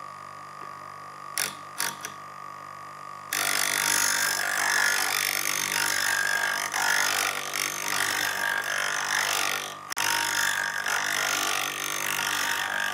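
A motor-driven grinding stone running with a steady hum while a steel chisel is ground on it. There are two brief touches early on, then from about three seconds in the chisel is held against the stone in a loud, even grinding noise, broken once for a moment near the end.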